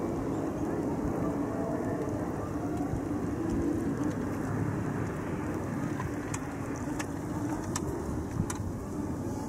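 Steady low rumble of distant engine noise, with a few brief faint high ticks in the second half.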